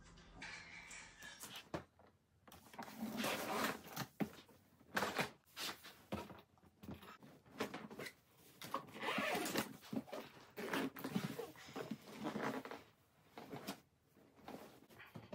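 Irregular rustling and handling noises in bursts of about a second, like a bag or package being handled and opened.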